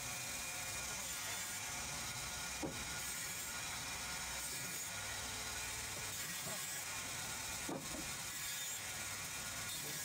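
Vertical band saw running steadily as a log is hand-fed through the blade, cutting it lengthwise into slabs. Two brief knocks come about five seconds apart.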